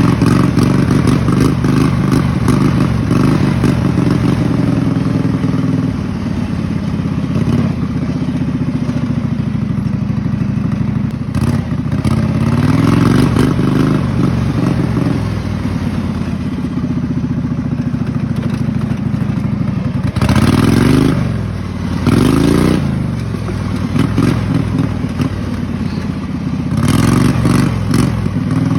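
Racing lawn mower's Kohler Command V-twin engine running hard while it is ridden, revving up and easing off several times, with some rattling.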